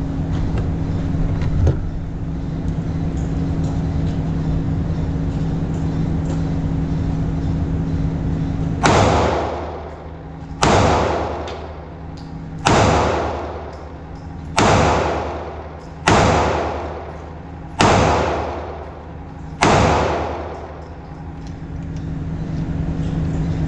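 Seven shots from a Ruger EC9s 9mm pistol, fired one at a time about every two seconds, each with a ringing tail. Before the first shot there is only a steady low hum.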